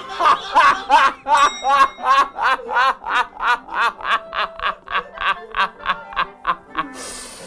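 A man laughing hard: a long, unbroken run of 'ha' bursts at about four a second that gradually weakens, then a brief noisy breath near the end.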